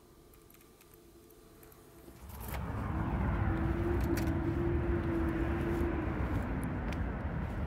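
A motor vehicle going by close, its rumble rising from quiet about two seconds in and holding, with a steady engine tone over it for a few seconds in the middle.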